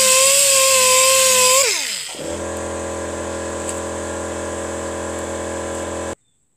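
Silverline mini 50 mm pneumatic sander running at full speed against a rusty steel frame, a high whine over a hiss of exhaust air, then spinning down in a falling whine about two seconds in when released. A 2.5 hp, 50-litre air compressor then runs with a steady hum until the sound cuts off abruptly near the end.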